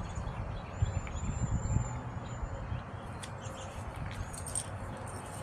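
Wind rumbling on the microphone, with a few faint, short, high bird chirps and scattered light clicks.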